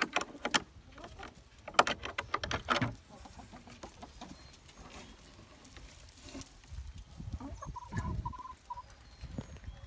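Buff Orpington hens clucking, with quick bursts of short clucks in the first three seconds and one drawn-out, wavering call about eight seconds in.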